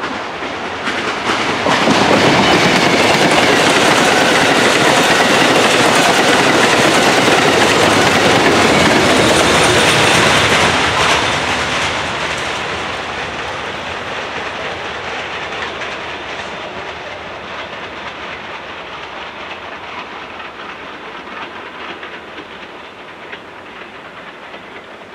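Amtrak Downeaster passenger train passing close by, its wheels clicking over the rail joints. The sound jumps up about two seconds in and stays loud for about nine seconds, then fades steadily as the train, with its locomotive at the rear, runs away into the distance.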